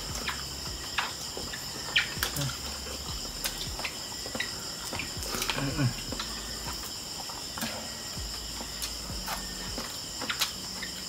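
Insects chirring steadily at a high pitch, with scattered clicks and smacks of people eating barbecue skewers and rice by hand.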